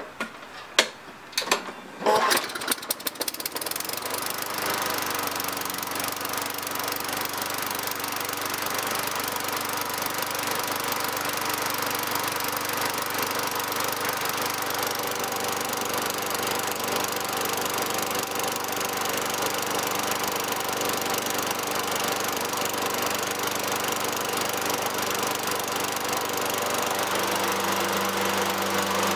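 Toro 20016 walk-behind lawnmower's small engine starting up after a few sharp clicks in the first two seconds, then running steadily at its governed speed of about 2,900 rpm, a normal speed for this engine.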